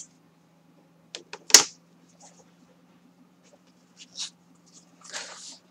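Cardboard album cover being scored with a bone folder and folded along its crease lines: a few sharp clicks and taps, the loudest about a second and a half in, another near four seconds, then a short scraping rustle near the end. A faint steady low hum runs underneath.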